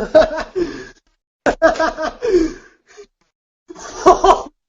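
A person's voice in short, broken bursts: startled exclamations and gasps, in three spurts separated by silent gaps.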